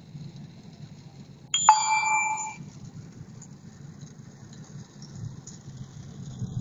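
A steady low vehicle rumble on the move, with a sudden ringing ding about a second and a half in that lasts about a second and is the loudest sound.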